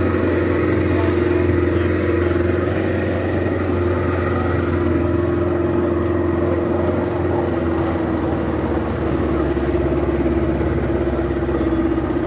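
A motor dive boat's engine running at a steady drone while the boat is underway, with a constant hum above the low rumble.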